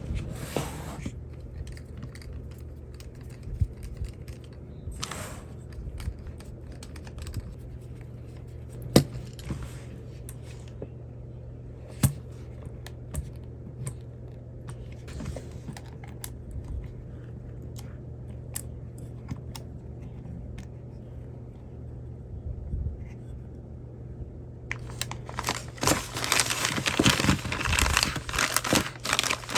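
Hand work on small RC truck parts: scattered light clicks and taps of small parts and tools over a steady low hum, with two sharper clicks. About 25 seconds in, a run of dense crinkling and rustling, as of plastic packaging being handled.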